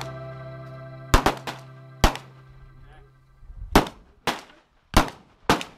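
Handgun shots on a shooting range, about eight in all: three in quick succession a little over a second in, then single shots spaced roughly half a second to a second apart. Background music fades out over the first three seconds.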